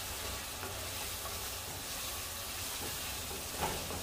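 Kulet, a spiced onion and meat stew base, sizzling steadily in a pot while a wooden spoon stirs it. There are faint ticks of the spoon and one sharper clack about three and a half seconds in.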